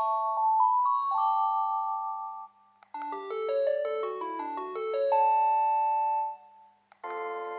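Panasonic KX-TGH710 cordless phone playing its electronic ringtones one after another: one melody ends about two and a half seconds in, then a short click, then a second tune of quick chords and notes. A second click comes near the end, and a third melody starts right after it.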